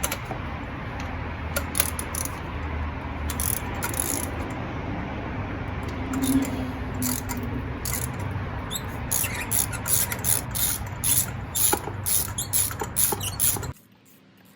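Spark plug socket on a ratchet clicking and clinking as a spark plug is worked loose from a Honda 2.4 four-cylinder engine, over a steady low background hum. The clicks come in quick runs in the second half and stop abruptly near the end.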